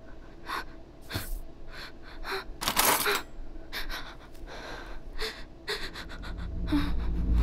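A young woman breathing hard in short, sharp gasps and pants, the loudest gasp about three seconds in. A low rumble swells in over the last two seconds.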